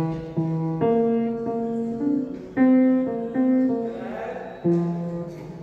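Piano playing a slow melody, single notes and chords struck about every half second and left to ring out.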